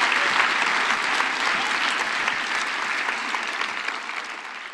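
A large audience applauding: dense, steady clapping that gradually fades away toward the end.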